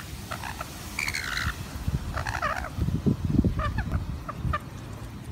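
Rainbow lorikeets giving short, chattering calls in several quick clusters while they feed from a hand, over a steady low rumble.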